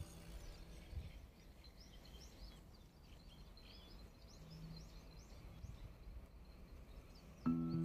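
Small birds chirping: many short, quick high calls scattered throughout, over a faint low background rumble.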